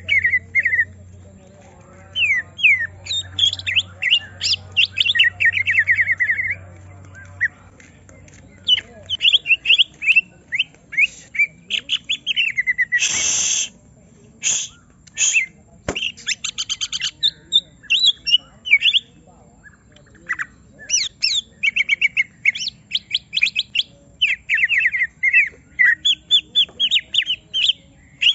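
Green leafbird (cucak ijo) singing in an agitated, provoked state: rapid runs of quick sliding whistles and chirps in bursts with short pauses, and a harsh loud burst about 13 seconds in.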